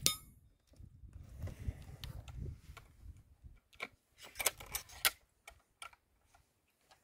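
The tail of a .25 calibre Hatsan Torpedo 155 Vortex air rifle shot, with a short high ring from the steel gong target. Then rustling and a series of sharp clicks and knocks as the underlever rifle is lifted off its rest and handled for the next shot.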